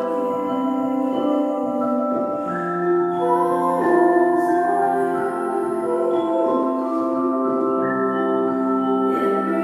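Slow melodic music with long held notes and changing chords.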